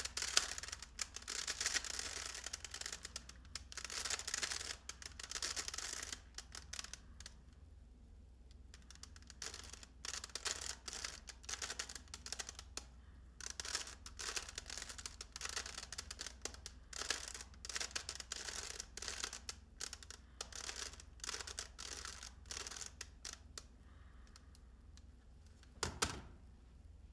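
Plastic Rubik's cube being twisted: runs of quick clicking and rattling as its layers turn, with a pause of about two seconds partway through. A single thump near the end.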